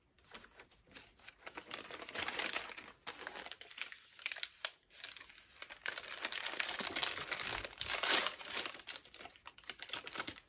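Wrapping crinkling and rustling as it is handled by hand, with a brief pause a little before the middle.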